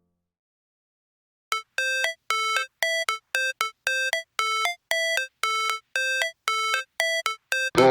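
Background music: after a second and a half of silence, an electronic melody of short chiming notes, about three a second. A full, dense track starts just before the end.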